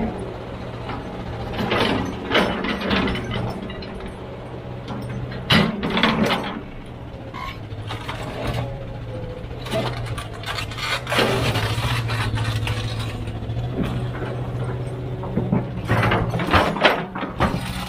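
Heavy diesel machinery running steadily, with repeated clanks and scrapes from the machine at work.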